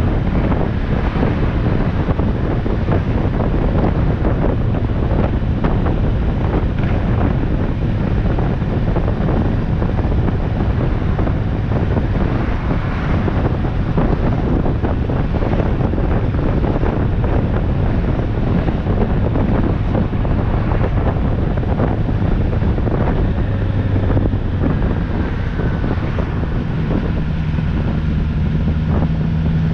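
Wind buffeting the microphone: a loud, steady rumble with no pauses. A faint low hum joins in near the end.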